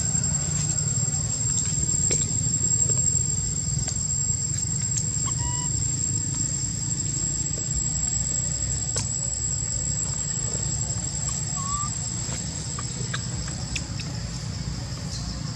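A steady high-pitched insect drone, typical of cicadas or crickets, over a steady low rumble. Two faint short chirps come about a third of the way in and again past two-thirds.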